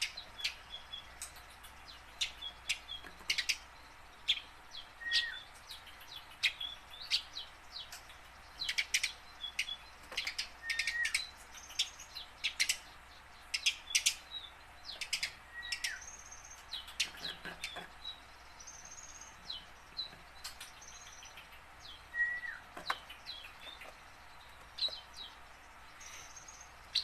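Eurasian tree sparrow chirping: irregular runs of short, sharp chirps with brief gaps between them.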